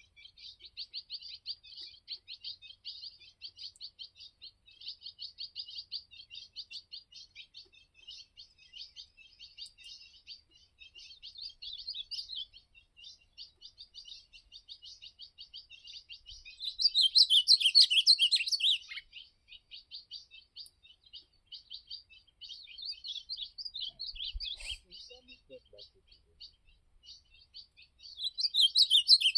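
Steady rapid twittering and chirping of songbirds, broken by a louder warbled song phrase about 17 seconds in and again near the end, as from an ultramarine grosbeak (azulão) singing in a campeada, where a caged azulão is set out to provoke wild ones.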